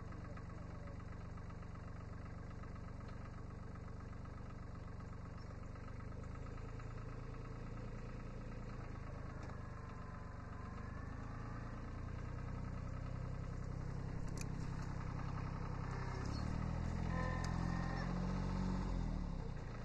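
Kubota B7100 HST compact tractor's small three-cylinder diesel running steadily. It grows louder over the second half, with a heavier low note near the end, as the tractor is backed up a few inches on its hydrostatic drive.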